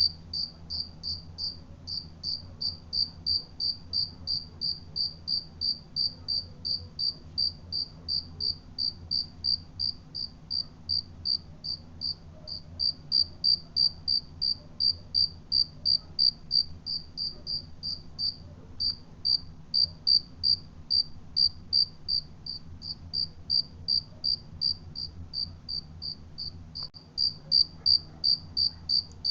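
A cricket chirping steadily in an even rhythm, about three high chirps a second, over a faint low hum.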